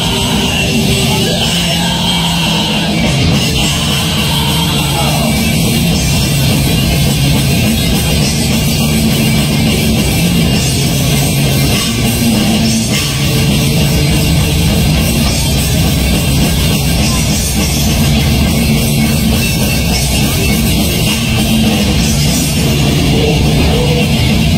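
Heavy metal band playing live: distorted electric guitars, bass and a drum kit in a loud, dense, unbroken wall of sound.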